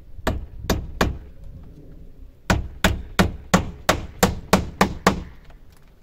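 Hammer driving thin nails into wooden cladding boards: three blows, a pause of about a second and a half, then a quicker run of about nine blows at roughly three a second.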